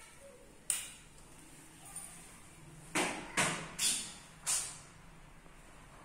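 Footsteps on a polished stone floor: one sharp step, then four more in quick succession about half a second apart.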